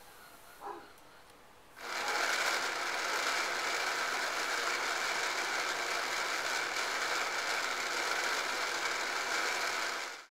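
Battery-operated adapted toy running, switched on by a press of its large button switch: a steady mechanical whirring rattle that starts about two seconds in and cuts off suddenly near the end.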